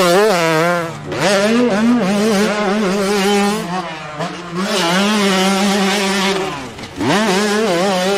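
Two-stroke motocross bike revving hard through corners, its engine pitch climbing and falling with the throttle. The throttle closes and the pitch drops about a second in and again near the end, then climbs again.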